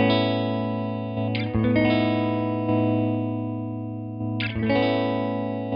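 Semi-hollow electric guitar chords played through an EarthQuaker Devices Hummingbird tremolo pedal, set to its slowest rate with the depth turned back. Each chord is left to ring and slowly die away. A new chord is strummed about a second and a half in and again about four and a half seconds in, as the pedal is switched to another mode for each.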